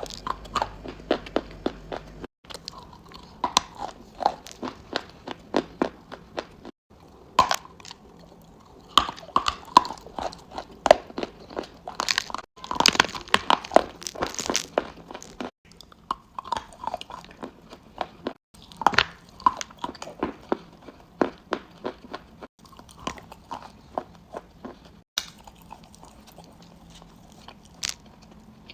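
A person biting and chewing crunchy chunks of edible chalk or clay close to the microphone: quick runs of sharp, crackling crunches, thickest in the middle, with a few abrupt breaks between takes.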